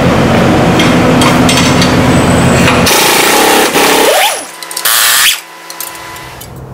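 Skid steer engine running loudly. About three seconds in it stops and gives way to a burst of hissing with a short rising-and-falling squeal, then a second brief hiss.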